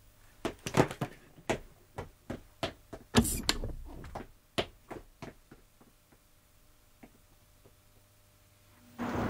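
A run of sharp knocks and thuds, irregular and tailing off by about six seconds in, the loudest a heavier thud with a brief rush about three seconds in. Just before the end a steady rushing noise, like wind or surf, sets in.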